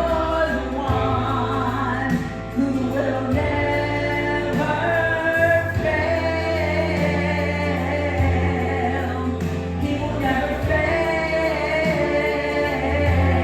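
Gospel song: singing voices over a recorded accompaniment with sustained bass notes.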